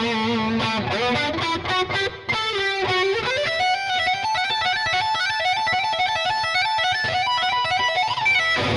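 Fender Blacktop Jaguar HH electric guitar, with its humbucking pickups through distortion, playing a fast lead solo. Rapid runs of single notes climb higher about three seconds in, and a note is bent upward near the end.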